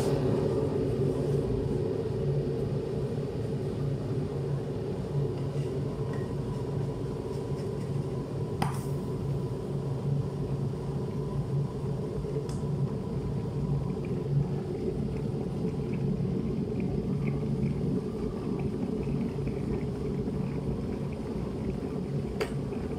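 A steady low motor hum, with a few light clicks about nine, twelve and twenty-two seconds in.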